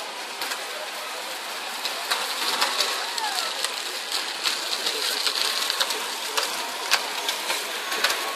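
Aerosol spray-paint can hissing, with one longer spray in the middle, among scattered clicks and taps.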